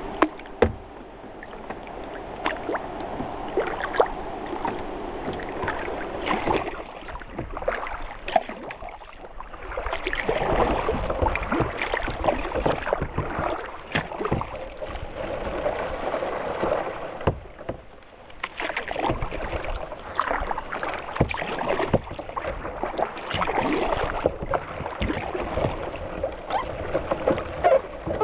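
A sea kayak being paddled: paddle splashes and drips, water washing against the hull, and many small clicks and knocks. Stiff rushes brush and scrape along the hull as it pushes through them, heard up close from a camera sitting on the deck.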